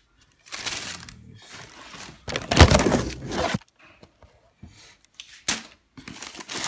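Tissue paper rustling and crinkling as it is handled inside a cardboard shoebox, in several bursts. The loudest, fullest burst comes about two and a half seconds in.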